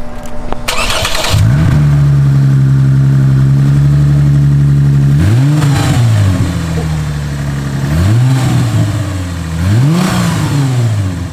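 Lexus IS350's 3.5-litre V6 cranking briefly and catching about a second in, settling into a steady idle. It is then revved three times with short throttle blips, each rising and falling back to idle.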